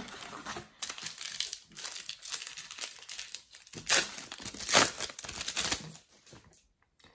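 Plastic wrapper of a Match Attax trading-card packet crinkling as it is torn open and the cards are pulled out, with two sharper rips about four and five seconds in.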